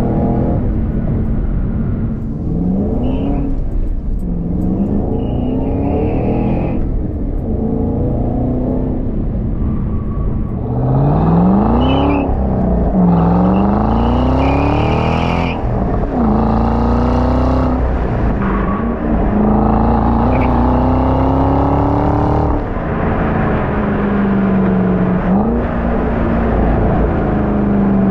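Supercharged 5.4-litre V8 of a stock 2011 Ford Shelby GT500 pulling hard through the gears of its six-speed manual: the revs climb and drop back at each upshift several times, then hold steadier under load. Heard first from inside the cabin, then from outside the car.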